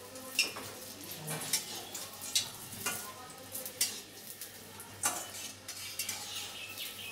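Battered chicken pieces frying in hot oil in a wok: a steady sizzle broken by sharp pops and spatters about once a second as the chicken bursts in the oil.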